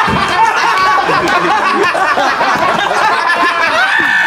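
Several people laughing and talking over one another after a joke.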